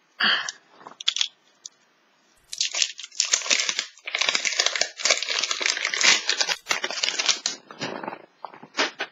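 Plastic shrink-wrap on a Mini Brands capsule ball crinkling and tearing as its tear strip is pulled off. A few short rustles come first, then about five seconds of dense crinkling in the middle, and a few more rustles near the end.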